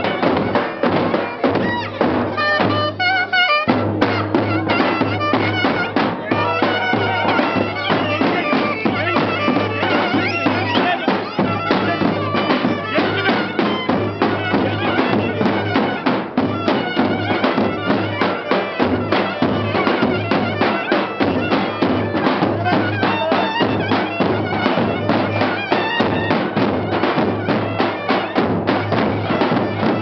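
Traditional Turkish folk dance music played live on a davul bass drum, struck in a steady beat, under a loud reedy wind instrument carrying the melody.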